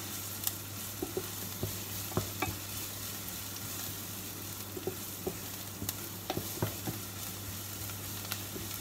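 Chopped onion and garlic sizzling in oil in a frying pan, stirred with a wooden spatula that scrapes and taps the pan at irregular moments. The onions are being sautéed until soft and brown.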